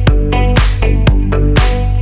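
Background music: an electronic dance track with a steady, fast beat.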